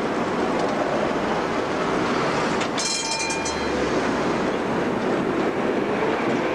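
Tatra T3 trams running close by, steel wheels rumbling and clattering on the rails. About three seconds in comes a brief high-pitched ringing tone lasting under a second.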